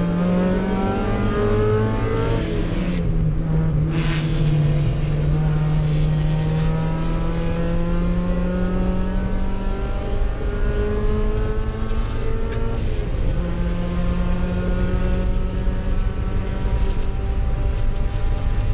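Mazda Miata race car's four-cylinder engine at full throttle, heard from inside the cockpit, climbing in pitch through the gears with upshifts about three seconds in and again near thirteen seconds, over road and wind noise.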